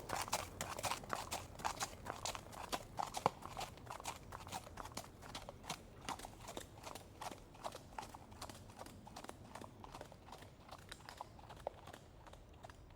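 Horse's hooves clopping, a quick, uneven run of clops that grows fainter.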